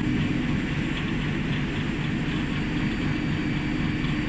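Steel ball rolling mill with spiral-grooved rolls running: a steady mechanical drone with a constant hum from its drive, and no hammer blows or impacts.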